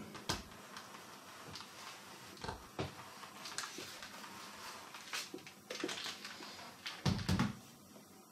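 Soft rustling and small clicks of a clothes iron being pressed and slid over paper on a cardboard blister card, then a dull thump about seven seconds in as the iron is set down on the table.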